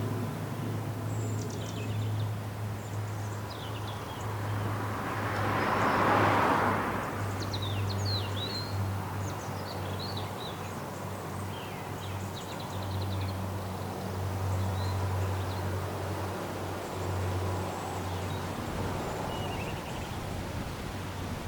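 Small birds chirping and twittering in the open air, with a rushing swell that rises and fades a few seconds in and a low steady hum underneath that stops near the end.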